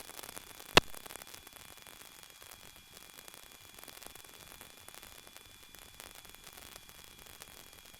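Faint steady static hiss on the aviation headset audio line, with a thin high whine, and a single sharp click a little under a second in.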